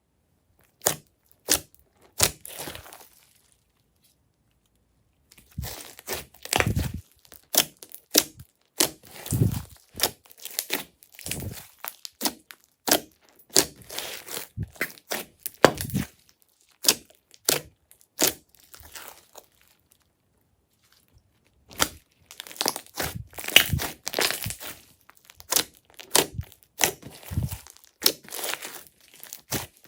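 Glossy slime being squished and stretched by hand, making a dense run of sticky clicks and pops, with two short breaks of silence.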